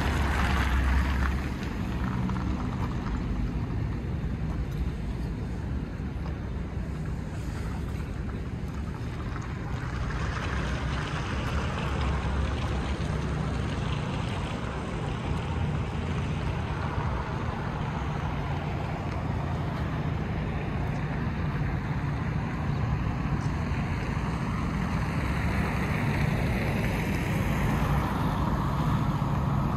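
Road traffic on a wide multi-lane city street: a steady wash of passing cars, with wind buffeting the microphone in low rumbles, strongest in the first second or so.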